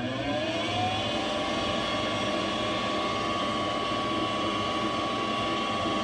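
Goodman propane furnace's draft inducer motor spinning up, its whine rising in pitch and levelling off about a second in, then running steadily. This is the first step of the furnace's start-up sequence, coming on after the tripped rollout switches were reset.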